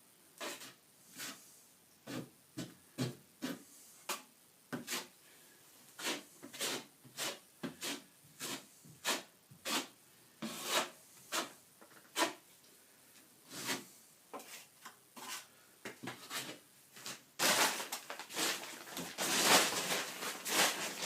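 A plastering blade scraping and spreading wet plaster mix as a hole in a plaster wall is filled, in short irregular strokes about one or two a second. Near the end the strokes run together into louder, continuous scraping.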